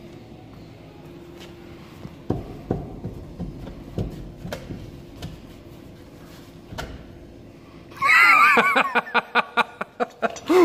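Knocks and thuds as a heavy truck tire is wrestled by hand on its wheel. About eight seconds in there is a loud squeal, followed by a quick run of clicks and rattles.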